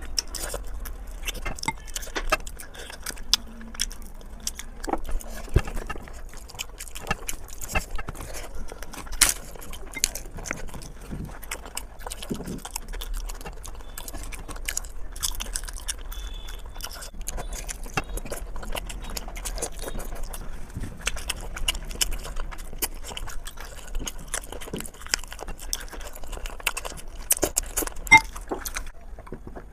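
Close-miked eating: chewing and biting with a dense run of small wet clicks, crunches and mouth smacks.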